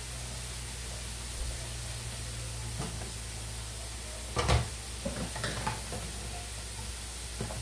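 Bison smash burger patties frying in hot grease, a steady sizzle with a few small pops, and one sharp knock about halfway through.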